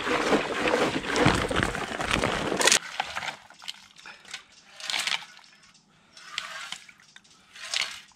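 Vinegar pouring out of a motorcycle fuel tank in a heavy, steady stream after a cleaning soak, carrying loosened silt. The stream cuts off suddenly about three seconds in, followed by a few short, quieter splashes.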